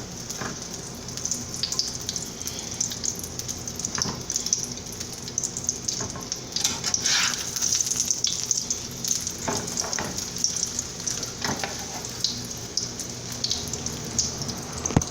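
Egg omelet sizzling steadily in hot oil in a skillet, with a few brief sharp clicks scattered through.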